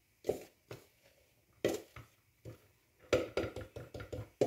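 A spoon knocking and scraping against a bowl as flour mixed with baking powder is scooped out for sifting: a string of short, irregular clinks and knocks, busiest in the second half.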